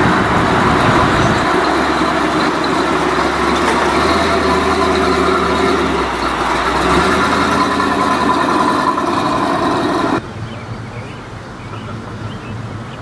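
Engines and exhausts of vintage custom pickup trucks running as they drive slowly past one after another, with a steady low engine note. The sound changes abruptly about six seconds in, and drops to a quieter vehicle sound about ten seconds in.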